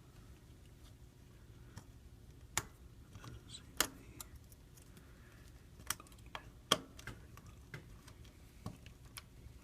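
Scattered light clicks and taps of small repair tools and parts on an iPhone 5c being reassembled, irregular, with about four sharper clicks standing out in the middle.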